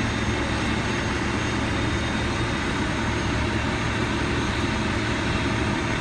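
Steady low rumble of street traffic, an even hum and hiss with no distinct events.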